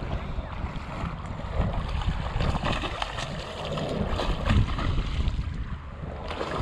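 Wind noise on the microphone over shallow lapping water, with a run of splashes about halfway through from a hooked snook thrashing at the surface.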